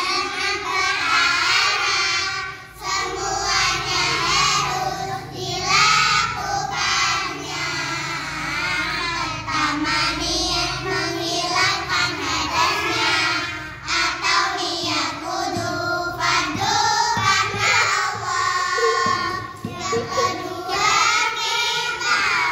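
A group of young girls chanting a nadhom in unison: a rhymed Islamic teaching verse listing the obligatory acts of wudu (ablution). They sing it as a sing-song melody, with short breaks between lines.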